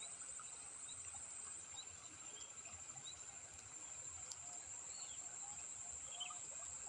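Insects trilling steadily at a high pitch, with short bird chirps scattered over it and a single faint click about four seconds in.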